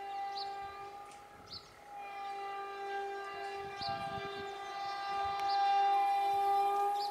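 Indian Railways WAP-4 electric locomotive's air horn sounding a warning for a level crossing: a held blast that breaks off about a second and a half in, then a long second blast that grows louder near the end.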